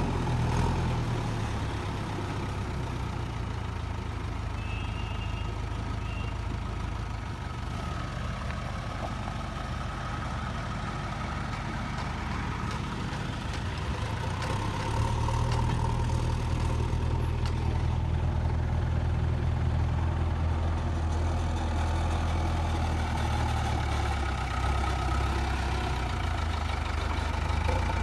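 Heavy diesel engine of earthmoving machinery running steadily with a low hum, growing louder about halfway through as it comes under more load.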